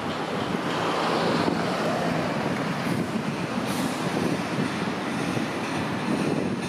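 Hiroden 3950-series articulated street tram running along the street track as it approaches the stop, a steady rumble and hiss of wheels and motor mixed with road traffic.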